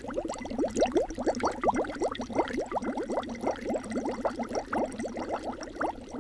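Air blown through a straw into a glass of water, making a dense, continuous run of quick bubbling pops. It is a Foley stand-in for a pot of soup boiling.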